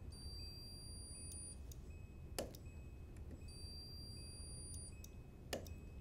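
Handheld trigger-operated spot welder firing twice into a strain gauge's steel mounting flange, each weld a short sharp snap, one about two and a half seconds in and one near the end. A faint high steady tone comes and goes between the welds.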